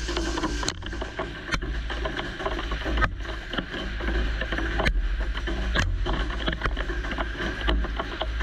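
Horizontal CNC mill drilling solid steel with a 2.5-inch Kennametal KSEM Plus drill under flood coolant: a steady low rumble of the spindle and cut, with coolant hiss and scattered sharp clicks of flying chips.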